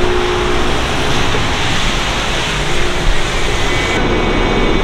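City buses running at a bus stop, with a steady engine and street noise as one bus stands at the kerb and another comes in behind it.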